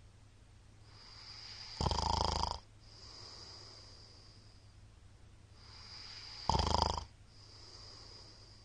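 A middle-aged man snoring loudly in his sleep: two harsh snores about four and a half seconds apart, each building out of a rising breath and trailing off into a softer, breathy exhale.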